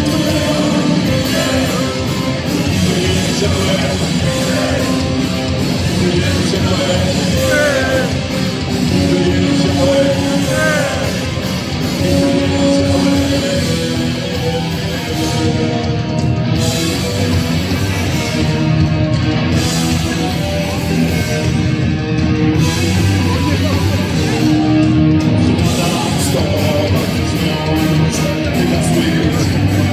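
Live punk rock band playing loudly through a PA: distorted electric guitars, bass and drums, with a singer and a French horn.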